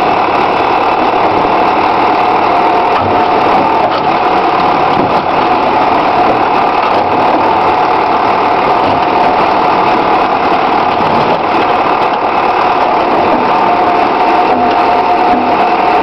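Backhoe's diesel engine running steadily, with a steady whine over its noise.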